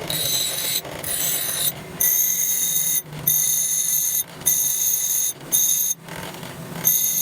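A high-pitched, steady whine made of several tones at once, coming in bursts of about a second that start and stop abruptly, six or seven times over.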